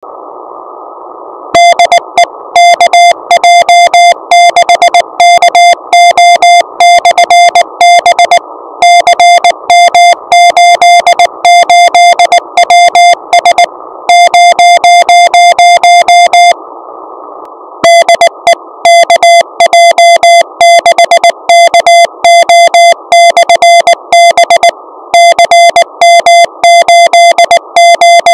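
Receiver audio of the KJ6KO/B CW beacon on 2 metres: a steady pitched tone keyed on and off in Morse code over a band of receiver hiss. The tone holds unbroken for a couple of seconds around the middle, then stops briefly, leaving only hiss.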